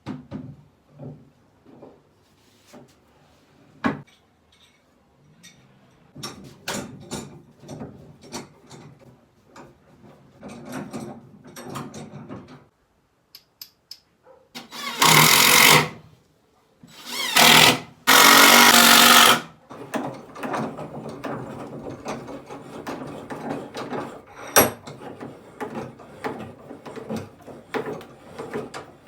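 Woodworking tool sounds: scattered knocks and scraping, then two loud runs of a power tool about halfway through, one about a second long and one about two seconds long, followed by a long stretch of rapid rattling and clicking.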